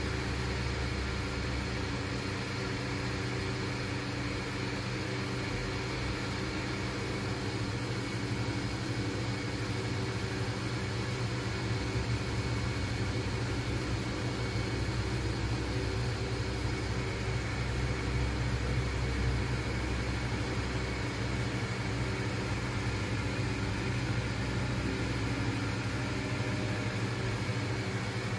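A small motor's steady hum, with several steady low tones and a faint higher whine.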